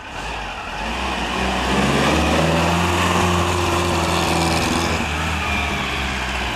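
Porsche 914 sports car driving past. Its engine note grows louder over the first couple of seconds, holds steady, then eases off near the end as the car moves away.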